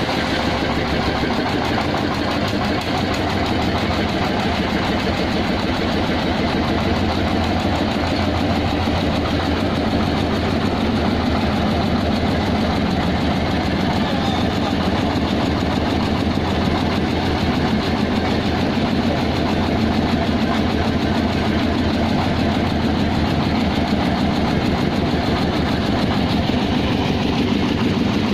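Homemade grandong dump truck's engine idling steadily with a fast, even pulse.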